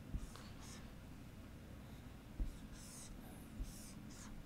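Faint dry-erase marker strokes on a whiteboard: several short scratchy strokes with a small squeak, as boxes are drawn, and a few soft knocks.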